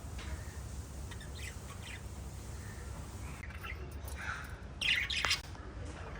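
Pet lovebirds chirping in short calls, faint at first, with a louder cluster of calls about five seconds in.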